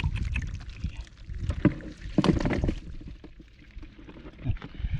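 Water splashing and sloshing in irregular bursts, with scattered knocks, as someone moves through and works in shallow water.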